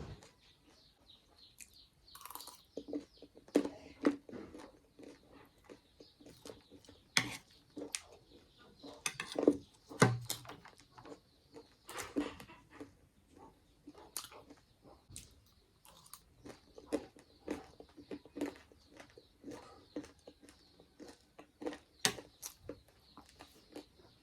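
Close-miked eating: a person chewing and biting food, with irregular wet smacks, clicks and crunches.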